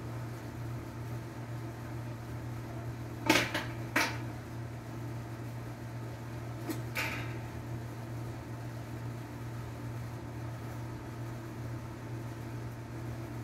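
Steady low mechanical hum, broken by two sharp knocks a little over three seconds in, under a second apart, and a softer knock about seven seconds in.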